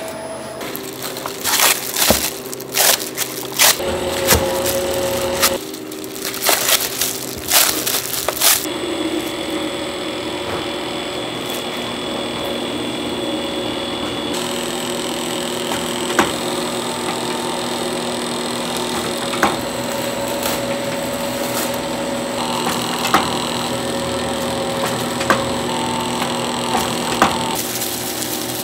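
Pounding machine striking glutinous rice dough in a granite mortar: a rapid, uneven run of sharp knocks and slaps. Partway through it gives way to a steady machine hum with a sharp click every few seconds, from a mixer stirring red bean paste.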